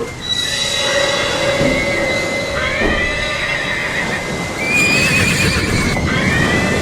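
A high, wavering animal call, repeated about four times in a row.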